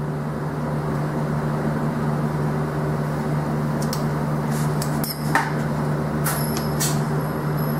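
Steady hum of a running motor with a constant low tone. A few light clicks and taps of metal engine parts being handled come about four to seven seconds in.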